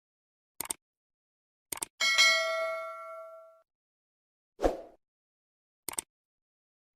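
A bright metallic ding that rings and slowly fades over about a second and a half, led in by quick double clicks. A short dull whoosh-thud comes about two seconds later, and more clicks follow near the end.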